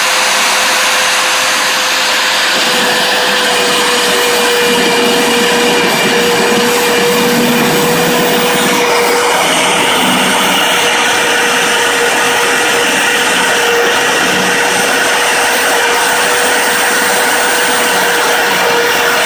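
Fein KBM 32 Q magnetic core drill running steadily under load with a constant motor whine, its 18 mm annular cutter boring into a steel beam. From about two and a half seconds in, a rougher cutting noise joins the whine as the cutter bites into the metal.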